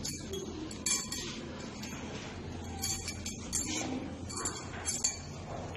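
Marker squeaking and tapping on a whiteboard in a string of short, scratchy strokes as it writes.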